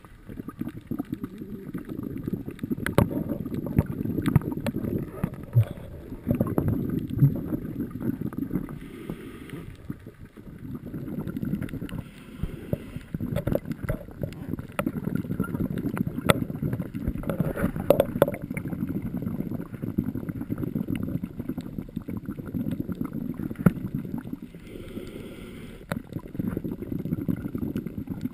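Scuba diver breathing underwater through a regulator: long stretches of low, crackling exhaled bubbles, broken a few times by short hissing inhalations.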